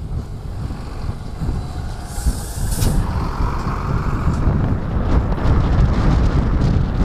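A heavy box truck passing close with a deep rumble, and a sharp hiss of compressed air from its air brakes about two to three seconds in. Wind buffets the microphone.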